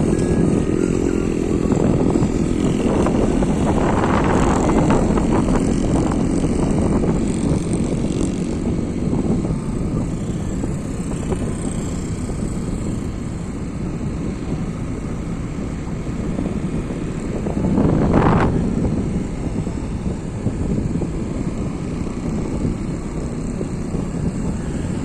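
A vehicle's engine running steadily while moving, with wind rumbling on the microphone. The sound swells a few seconds in and again briefly near three quarters of the way through.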